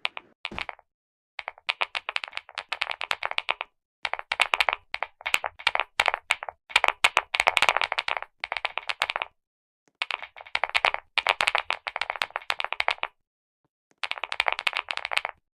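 Rapid typing on a clicky keyboard, in about six runs of quick key clicks with short pauses between them.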